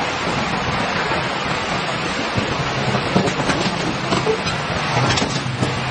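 Steady loud hiss of inflatable liferafts filling with gas from their inflation cylinders as the canopies unfold and rise.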